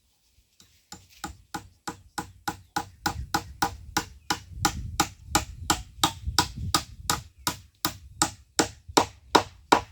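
Hammer driving a nail into wood: a steady run of sharp blows, about three a second, starting about a second in.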